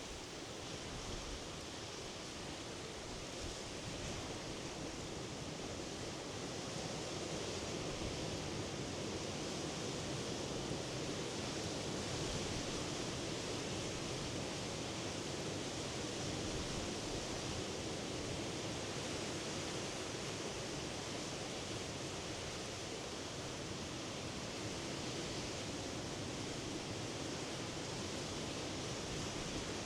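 Sea surf washing on the shore: a steady rushing hiss without distinct breaks, swelling slightly over the first several seconds.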